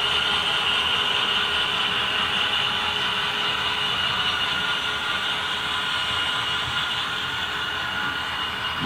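HO scale freight cars rolling past on model track: a steady rolling rumble with a high, steady whine, getting slowly quieter.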